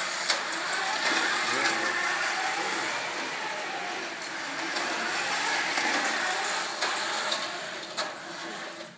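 Small wheeled robot's electric drive motors and two-speed gearboxes whirring as it drives across carpet, a steady whir with a faint whine that rises and falls with its speed.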